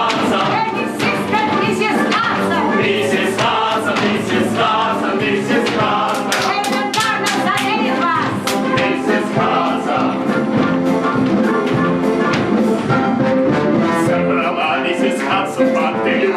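A stage-musical song: voices singing together over instrumental accompaniment, continuous and loud.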